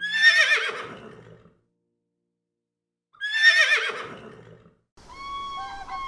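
A horse whinnying twice: each call is a wavering neigh that starts high and falls away over about a second and a half, with a silent gap of about two seconds between them.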